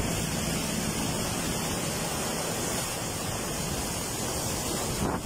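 Steady rushing noise of a river in flood, with fast muddy floodwater churning and surging along a bridge embankment.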